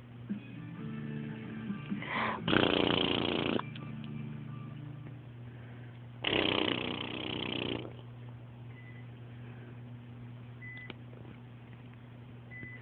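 A small child making two loud, rasping noises in the throat on request: one about two and a half seconds in, and a longer one about six seconds in.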